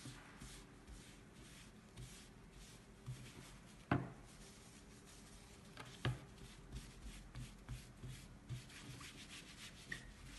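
A folded tissue rubbing back and forth over a painted panel, faint repeated wiping strokes that wipe marker scribbles off the washable paint. Light knocks come about four seconds in and again about six seconds in.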